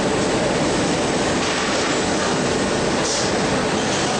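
Steady din of industrial laundry machinery, a flatwork ironer and folding conveyor line running, with a short hiss about three seconds in.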